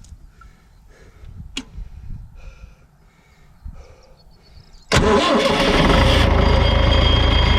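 Irrigation pump engine starting suddenly about five seconds in and settling into a steady run, after a few quiet clicks and knocks.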